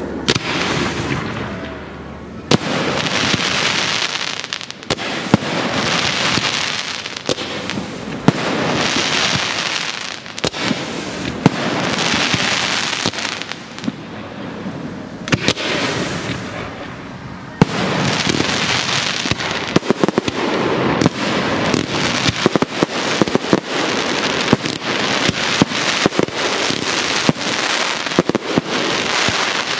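Aerial fireworks bursting, with sharp bangs over swells of noise that rise and fall every couple of seconds. From about eighteen seconds in, the bangs come quick and dense in a rapid run of reports.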